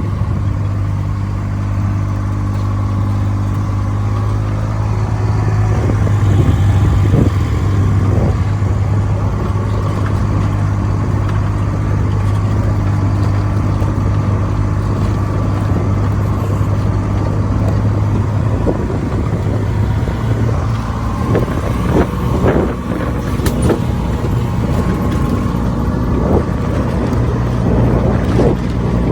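Farm vehicle engine running steadily while driving over a paddock. It eases off about two-thirds of the way through, with scattered knocks and rattles, then picks up again near the end.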